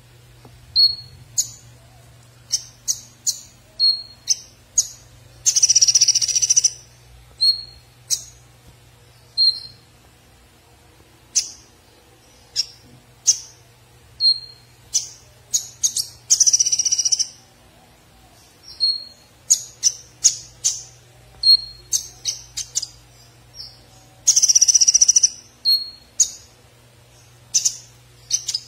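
Caged male konin sunbird calling: short, sharp, high chirps every half-second or so, broken three times by a louder fast trill about a second long. A faint steady low hum runs underneath.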